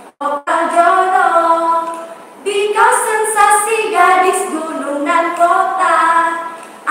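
Women's voices singing unaccompanied: a couple of short clipped notes, then long held notes gliding between pitches, with a brief break just over two seconds in.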